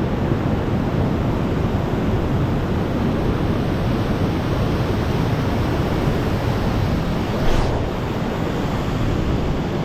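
Waterfall rushing: a steady, loud roar of falling water. A brief louder swish comes about seven and a half seconds in.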